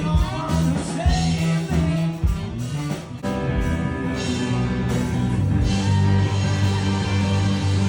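Rock music with electric guitar, bass, drums and a singing voice; the drum hits are strongest in the first three seconds, then held bass notes and chords carry on.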